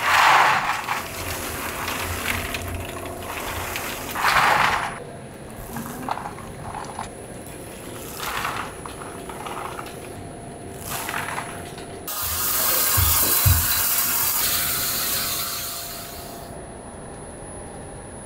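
Snack-factory machinery working: several short bursts of clatter and rustling, then a strong steady hiss lasting about four seconds, starting some twelve seconds in.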